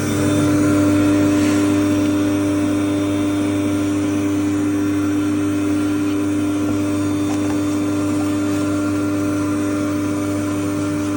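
A vacuum cleaner more than 30 years old running steadily: a loud, constant motor hum with a strong steady tone, swelling slightly in the first second.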